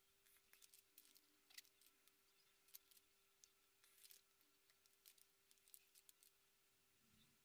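Near silence with faint, scattered clicks and rustles of small plastic toy pieces and a paper instruction leaflet being handled, over a faint steady hum.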